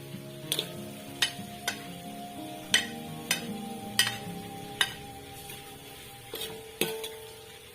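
A cooking utensil knocking against a pan about eight times at uneven intervals during stirring, with faint sizzling, over background music.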